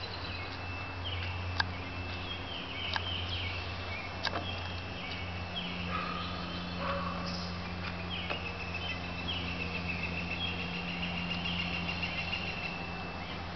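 Birds chirping over a steady low hum, with a few sharp taps in the first seconds from a toddler's shoes on perforated metal playground steps.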